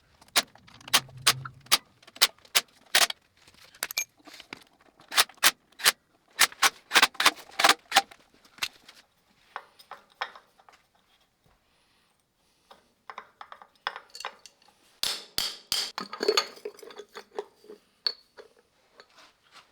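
Metal tools and parts clinking and knocking against one another in irregular bursts of sharp clicks, with a brief pause part way through.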